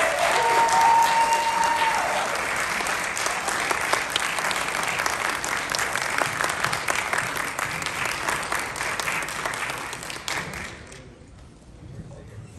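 Audience applauding, a dense spread of hand claps with a brief held cheer near the start, dying away about eleven seconds in.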